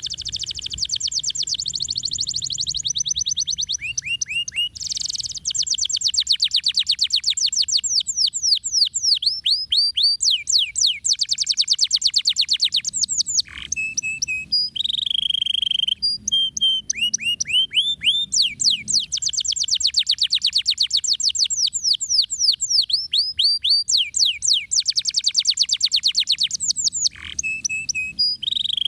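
Domestic canary singing a long, unbroken song of very fast, dense trills (ngeriwik) and rolls, many notes a second, mixed with quick downward-sweeping whistles. The song breaks off only briefly about halfway through and again near the end.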